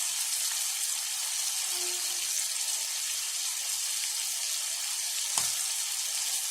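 Chicken pieces with spices frying in oil in a pan, a steady high sizzle, with a single knock about five seconds in.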